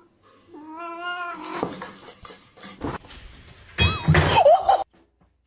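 A cat meowing: one drawn-out meow, followed by scuffling noises and a louder, noisier burst with wavering cries about four seconds in that cuts off suddenly.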